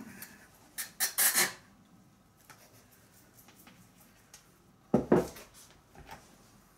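Glass demijohn holding cleaning liquid being handled: a short burst of clinking and sloshing about a second in, then a thud with a clink as the heavy glass jar is set down on a wooden table about five seconds in.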